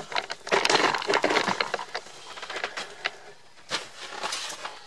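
Spinning reel clicking and crackling under load as a hooked catfish is fought on the rod. There is a dense run of rapid clicks about half a second in, lasting about a second, then scattered single clicks and a shorter run near the end.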